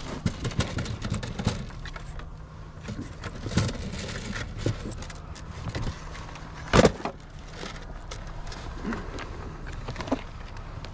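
Hunting gear being handled and shifted in marsh mud: scattered clicks, knocks and rustles, with one loud thump about seven seconds in.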